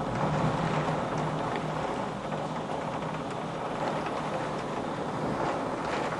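Storm wind and heavy rain making a steady rushing noise, with a few faint taps of raindrops hitting the window glass.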